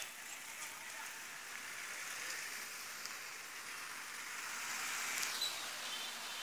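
Steady watery hiss of traffic on a waterlogged road, tyres running through standing water. It swells as a truck passes close by and drops away about five seconds in.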